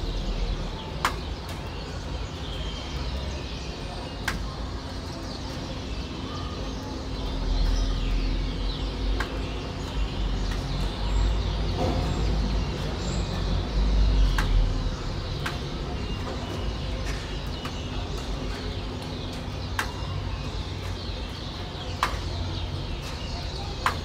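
Dense chattering of many starlings gathering to roost, over a low rumble of city traffic that swells twice. Sharp water drips land every few seconds.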